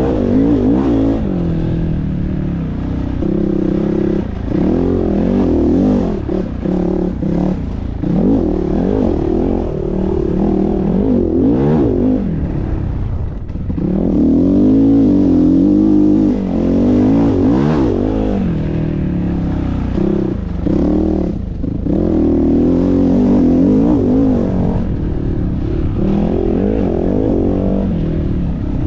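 A GPX FSC 450R four-stroke dirt bike engine being ridden hard around a motocross track. Its pitch climbs and falls again and again as the throttle is opened and shut, with short drops off the throttle every several seconds.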